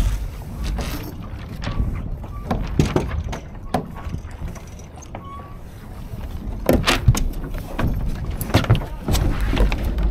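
Laser dinghy on the water: wind rumbling on the microphone and water splashing against the hull, with irregular knocks and clicks from the boat's fittings.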